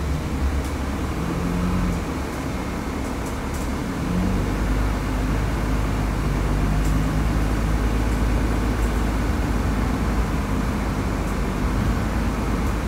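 Interior of a 2004 Nova Bus LFS diesel city bus under way: a steady low engine and road drone whose pitch shifts, growing louder about four seconds in, with a few faint rattles.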